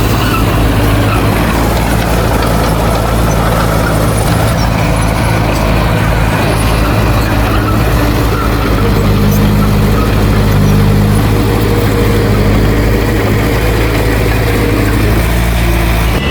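Heavy diesel engine of earthmoving machinery running steadily under load, with a slight shift in its tone about halfway through.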